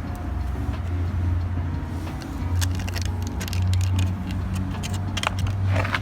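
Skateboard wheels rolling on pavement: a steady low rumble with scattered clicks and knocks.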